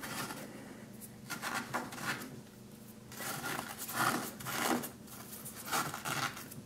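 Fingers scratching and picking at set, hardened sodium acetate 'hot ice' in a glass dish, trying to free an iPhone stuck in the crust: a string of short, irregular scrapes.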